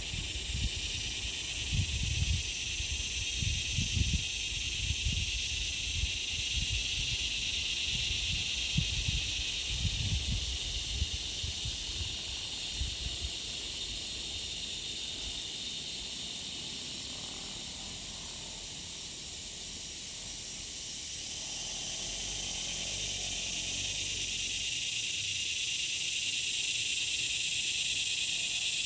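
Bush insect chorus: a steady shrill drone with an evenly pulsing high trill over it, repeating a little faster than once a second. Low rumbling bumps on the microphone during the first ten seconds or so.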